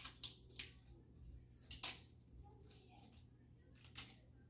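AirPods packaging being handled: paper inserts and plastic wrap crinkling in several short, sharp rustles separated by quiet.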